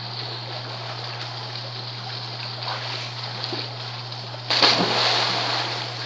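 Splashing in a small swimming pool, with a steady rush of water noise and one sudden loud splash about four and a half seconds in that dies away over a second or so.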